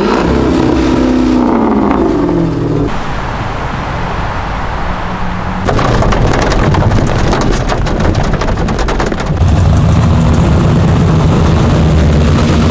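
A car engine revving up and easing off as a Dodge Charger pulls away. Then heavy rain drums on a moving car's windshield and roof, and from about nine seconds in a supercharged Pontiac GTO V8 growls past with a deep, steady rumble.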